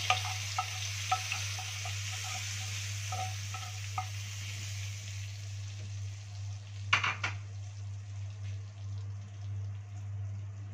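Fried minced garlic and its hot fat hitting a pot of taro in duck broth, sizzling, the hiss fading over the first few seconds. Light clicks come in the first four seconds, with a sharper knock about seven seconds in, over a steady low hum.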